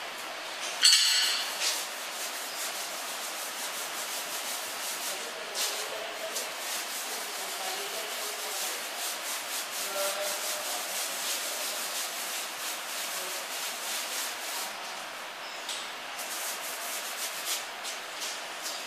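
A paintbrush scrubbing paint onto a wall, with repeated short strokes. A louder scrape comes about a second in.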